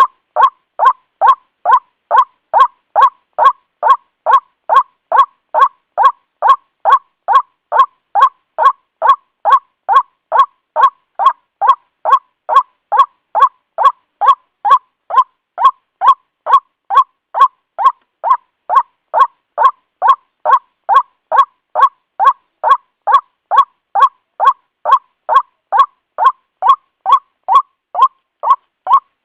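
White-breasted waterhen (ruak-ruak) calling: a loud, unbroken series of short, identical notes, about two a second.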